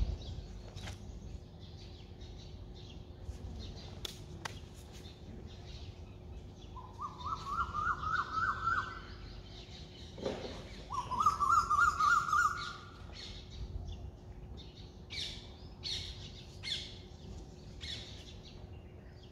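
Several birds chirping in short high calls throughout. Near the middle come two louder runs of fast, repeated rising notes.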